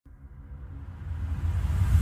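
Opening of an intro soundtrack: a deep rumble swelling steadily louder from silence, with faint held tones above it, building up to a logo reveal.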